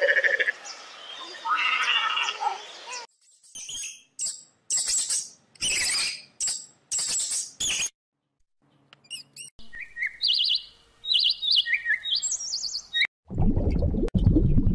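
Short, high bird-like chirps and tweets in separate bursts with brief silences between them, then, about a second and a half before the end, a steady rush of bubbling aquarium water.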